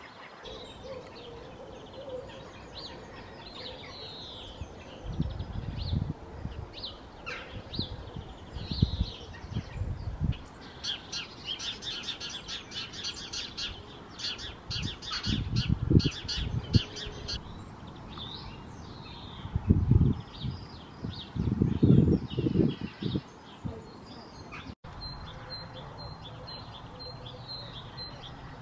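Garden songbirds chirping and singing, with a long rapid trill in the middle. Several loud low thuds or rumbles come and go among them. Near the end one bird repeats a short high note about twice a second.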